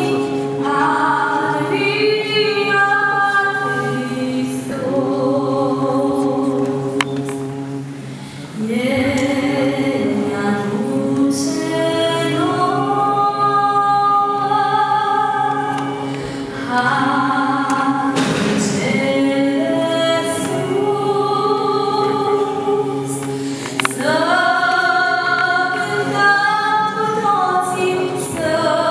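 Female voice singing a slow Romanian religious song, with other voices singing along in harmony.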